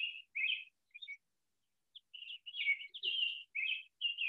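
A songbird chirping in quick runs of short, bright notes, pausing for about a second partway through before starting again.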